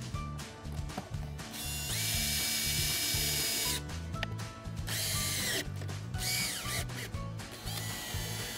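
Cordless drill/driver running in short runs as it drives screws through a plastic solar entry panel into cedar siding. There is one long steady run about two seconds in, a shorter run past the middle with the motor pitch sliding up and down, and another near the end. Background music with a steady beat plays underneath.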